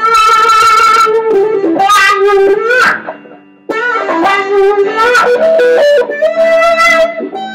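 Electric guitar through a Lovepedal Bullnose Billet fuzz into a Fender Princeton Reverb amp, playing sustained, harmonic-rich lead notes with bends and gliding pitch. The sound dies away briefly about three seconds in, then comes back abruptly.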